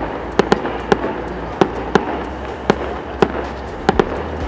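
Fireworks display going off: an irregular string of sharp bangs, about two or three a second, over a steady rumbling background.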